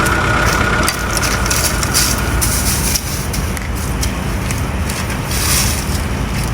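Steady engine-like rumble with hiss on top, the sound of a truck engine running. A steady high tone heard with it stops about a second in.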